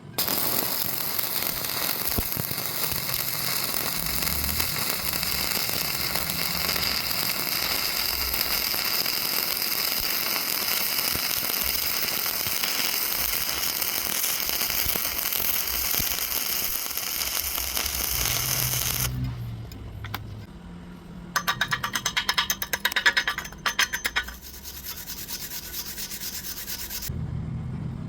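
Arc welding: a steady crackling hiss of the welding arc for about nineteen seconds. After a short pause comes a quick run of sharp scraping strokes, then a shorter, weaker hiss that cuts off near the end.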